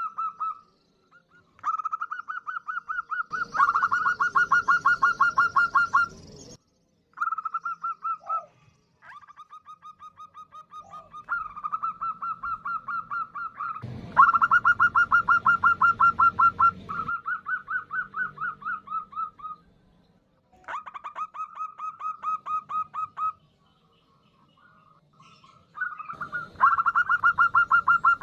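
Female zebra dove (perkutut) calling: rapid stuttering trains of short coo notes, about eight a second, in bouts of a few seconds with short pauses between them. Three of the bouts are louder and fuller than the rest. It is the call a hen uses to draw in males.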